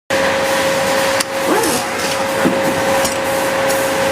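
Pneumatic bottom-cup (siphon-feed) paint spray gun blowing a steady, loud hiss of compressed air, with a steady hum beneath it; the hiss grows and fades several times.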